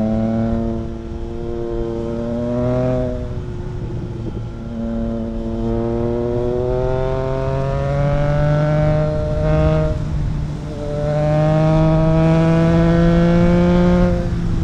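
Triumph Trident 660's three-cylinder engine, breathing through a home-built custom exhaust with no dB killer fitted, pulling under throttle. The engine note climbs steadily in three long pulls, each broken by a short drop in sound.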